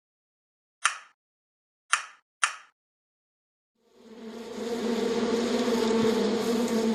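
Three sharp knocks in the first two and a half seconds. Then, about four seconds in, a flying insect's steady buzz fades in and holds.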